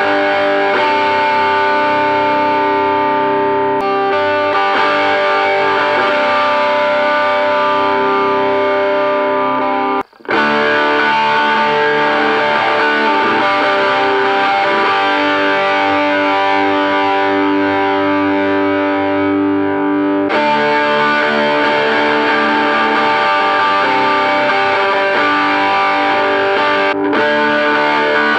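Electric guitar with distortion played through a small combo amp, held chords changing every few seconds, heard through its screw-pole humbucker pickup. The sound cuts out for a moment about ten seconds in and picks up again.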